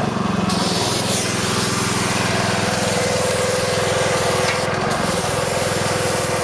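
Pressure washer with a sandblaster attachment spraying a water-and-sand jet: a harsh steady hiss over the pressure washer's small engine running steadily. The blast stops briefly near the start and again just before five seconds in.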